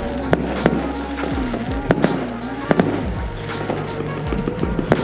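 Fireworks going off in quick succession: a string of sharp bangs, about two or three a second.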